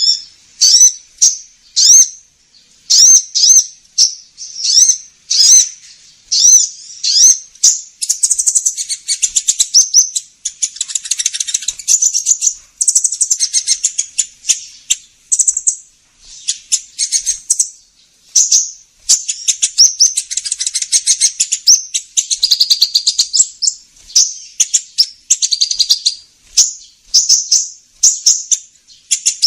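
High-pitched song of the sunbird known in Indonesia as kolibri ninja, played back as a bird-catching lure call. It opens with separate sharp chirps about twice a second, then from about eight seconds in runs into fast, dense twittering phrases with short breaks.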